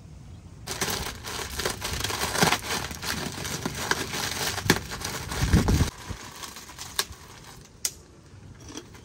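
Crisp fried food being crushed by hand inside a plastic bag: a dense crackling and crinkling that starts about a second in and runs for about five seconds, with a dull thump near its end. It then eases to a few scattered crunches and clicks.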